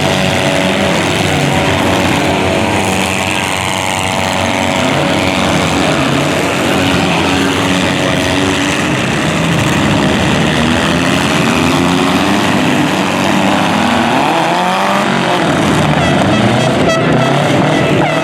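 Several demolition derby car engines revving hard over a dense mechanical din, their pitch rising and falling as they accelerate and back off. A horn begins to sound near the end.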